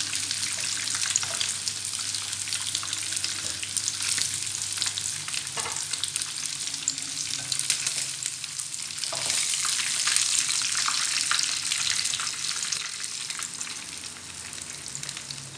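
Shredded-potato and minced-pork fritters deep-frying in a pan of hot oil: a steady sizzle with dense crackling, easing somewhat near the end.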